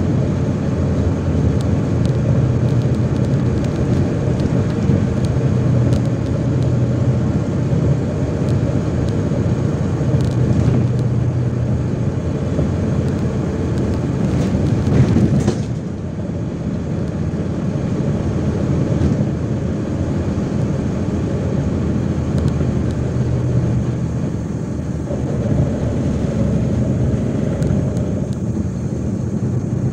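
MAZ-103 city bus on the move, heard from inside the passenger cabin: a steady engine drone under road noise. About halfway through there is a sharp knock, and after it the sound drops a little quieter.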